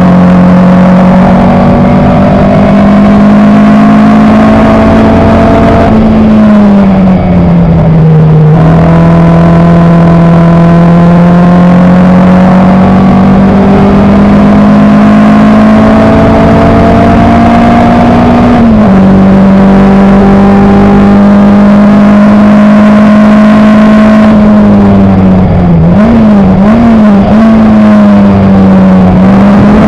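Elva MkIV's Coventry Climax FWA four-cylinder racing engine, loud from the cockpit, revs climbing steadily under hard acceleration. The pitch sags about six seconds in as the driver lifts for a corner, drops suddenly near nineteen seconds at a gear change, and wavers with quick blips a few seconds before the end before climbing again.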